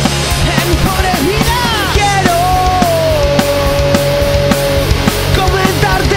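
Loud rock song played by a full band with a steady drum beat. A melodic lead line slides in pitch, then holds one long note through the middle.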